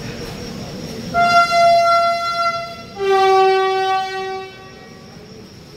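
Indian Railways locomotive horn sounding two blasts, a higher note for about two seconds and then a lower note for about a second and a half, over steady platform background noise.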